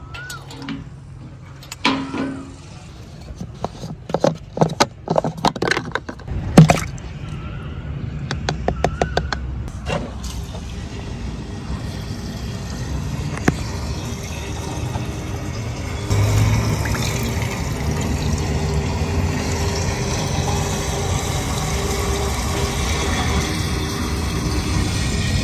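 A few sharp metal clicks and knocks as a filler cap and fittings are handled. Then liquid pours steadily from a hose into a tank's filler neck, the rushing getting louder about two-thirds of the way in.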